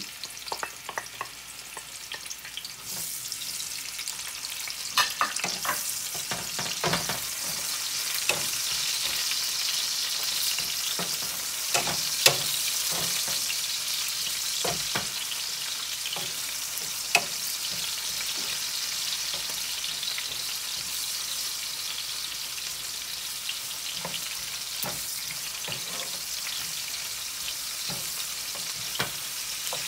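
Sliced red onion and garlic sizzling in hot oil in a nonstick frying pan, stirred with a wooden spatula that knocks and scrapes against the pan now and then. The sizzle builds over the first few seconds and then holds steady.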